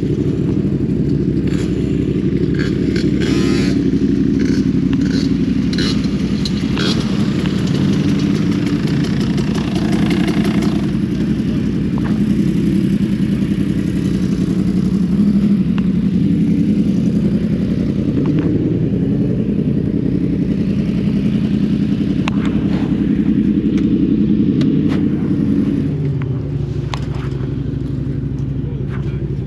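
Motorcycle engines running steadily, with scattered clicks and rattles over them; the engine sound drops somewhat near the end.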